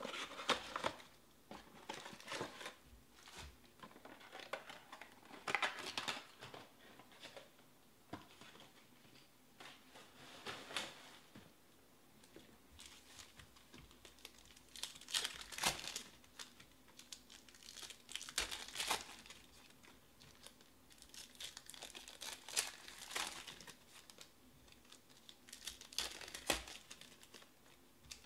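Trading-card packs and box packaging from a 2020 Panini Select Baseball box being handled and torn open: plastic wrappers crinkling and ripping in irregular bursts every few seconds.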